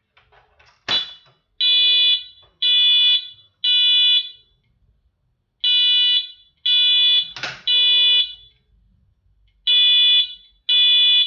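Wheelock MT-24-MCW fire alarm horn strobe sounding its code 3 tone, the temporal-three evacuation pattern. It gives groups of three short, loud blasts about a second apart, with a pause between groups. A sharp click sounds about a second in and another at about seven and a half seconds.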